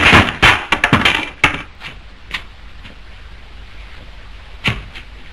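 A quick run of sharp wooden knocks and clacks, then one more knock near the end: a pool cue and billiard balls clattering on a pool table.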